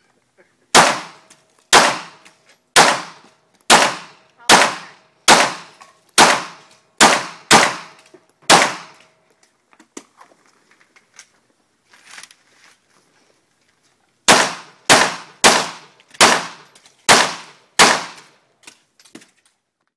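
Glock pistol firing a string of shots: about ten roughly a second apart, a pause of about five seconds, then six more in quicker succession.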